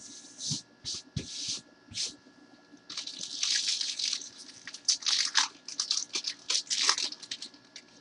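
Plastic wrapping on a trading-card box being torn and crinkled by hand: a few short rustles, then from about three seconds in a dense run of crinkling and tearing lasting about four seconds.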